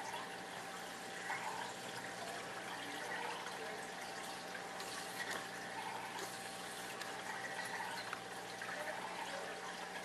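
Water trickling and bubbling in a 150-gallon aquarium, with small splashy blips over a steady low hum and a faint steady tone.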